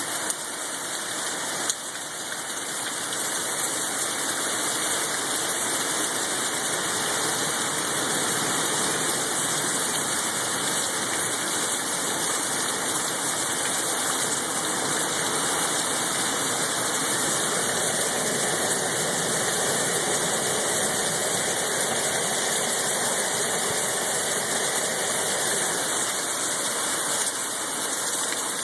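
Storm-force wind rushing steadily, a loud hissing roar with no let-up. There is a single click about two seconds in, and the wind swells to a stronger level just after it.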